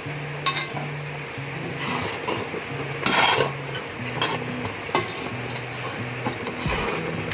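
Food frying in cooking oil in a pan, with a utensil scraping and clicking against the pan; the scrape is loudest about three seconds in. A low background music line plays underneath.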